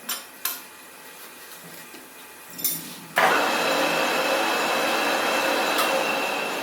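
A few light metallic clicks, then about three seconds in a lathe's cutting tool bites into the spinning workpiece: a sudden, loud, steady cutting noise with a high whine in it that keeps going.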